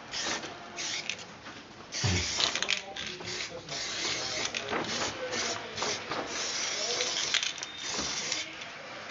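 Aerosol spray-paint can hissing in bursts, short ones at first, then longer runs with brief breaks from about two seconds in.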